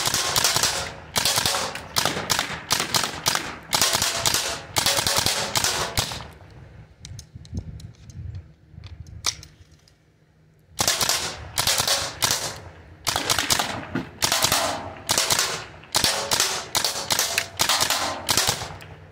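Byrna Mission 4 CO2-powered .68-calibre launcher firing rapid semi-automatic shots: a fast string of sharp pops, a few seconds' lull with only stray shots, then a second fast string.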